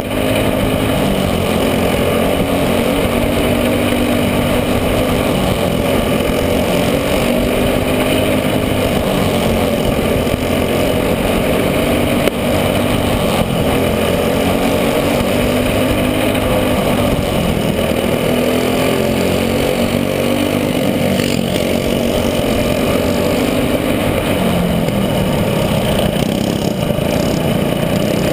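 Racing kart engine heard close up from onboard, running hard with its pitch rising and falling over and over as the kart accelerates and eases off around the track.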